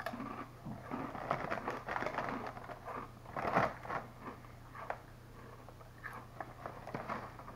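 Crunching and chewing of thick ridged potato chips (Ruffles Double Crunch), in irregular crunches that are densest in the first half. Near the end the plastic chip bag crinkles as it is handled.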